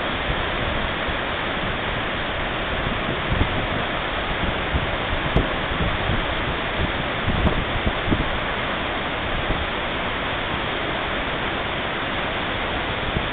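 Roaring River Falls, a waterfall plunging into its rocky pool, making a steady, unbroken rush of falling and churning white water heard close up.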